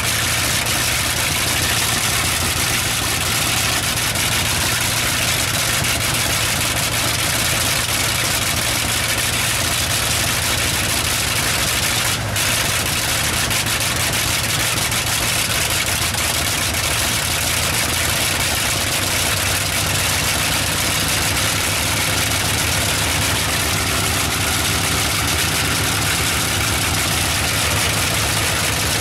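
Bristol Hercules fourteen-cylinder, double-row sleeve-valve radial aircraft engine running steadily on a test stand, its propeller turning.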